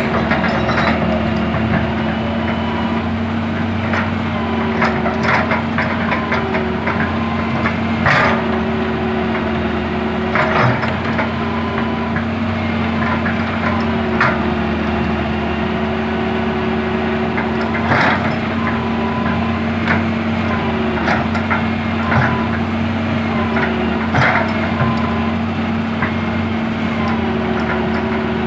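Hydraulic excavator running steadily, its hydraulics whining on and off as the boom and bucket move. Wooden knocks and cracks sound now and then as the bucket shoves logs into place; the loudest are about eight and eighteen seconds in.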